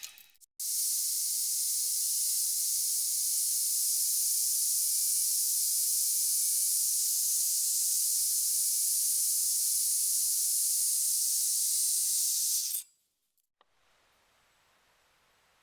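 Spray paint hissing in one long continuous pass of about twelve seconds, cutting off suddenly.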